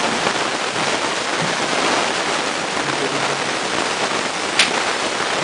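A steady, even hiss of noise, with one sharp click about four and a half seconds in.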